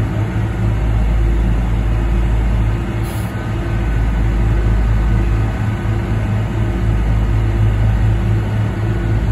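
Heavy diesel engines running steadily, a low drone with a constant hum, from a Cat AP655 asphalt paver and the dump truck feeding it asphalt.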